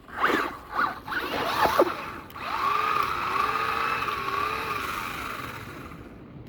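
Small electric motor of an RC car whirring in a few quick rising-and-falling bursts. Then a longer, slightly wavering whine slowly fades away.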